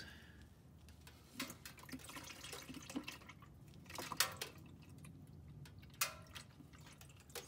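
Engine oil draining from a Fumoto drain valve through a hose into a bucket: faint liquid trickle with a handful of sharp, irregular drips and taps, the loudest about four seconds in.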